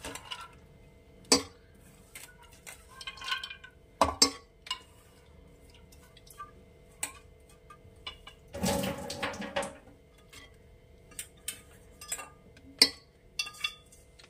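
Soaked split peas being added to an aluminium pressure cooker: scattered clinks and knocks of the peas and a utensil against the metal pot, with a longer rattling pour a little past halfway. A faint steady hum sits underneath.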